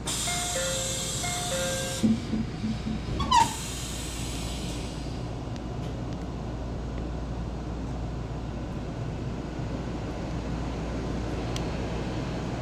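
Door chime of a JR Central 313-series train: a two-note chime sounds twice over a rush of hissing air. A few low knocks and a sharp thud follow about three seconds in as the doors close, then the steady hum of the standing train.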